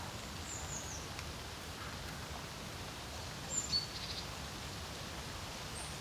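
Steady wind over a lake with a low rumble, and a few high songbird chirps: a short falling chirp about half a second in, and a quick run of short notes a little past halfway.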